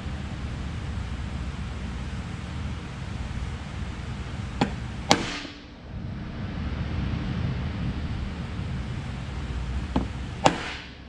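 Hammer striking steel twice, then twice again: each time a light tap and then a harder blow that rings briefly, as in centre-punching marked hole locations before drilling. A steady low hum runs underneath.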